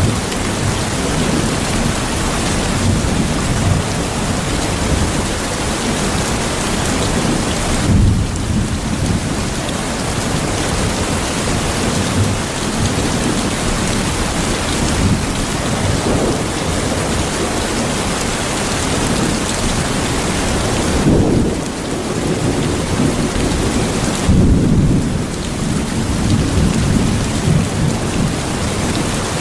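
Steady rain with thunder rolling through it. Low rumbles of thunder swell about eight seconds in, then twice more close together later on.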